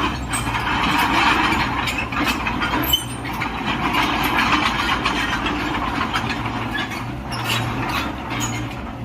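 Cat 305.5E2 mini excavator's diesel engine running steadily, with a few short clanks near the end.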